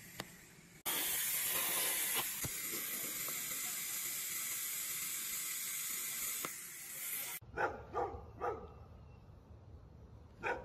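TIG welding arc on a stainless steel exhaust pipe: a steady hiss that starts about a second in and cuts off abruptly about seven seconds in. After it come a few short, fainter sounds.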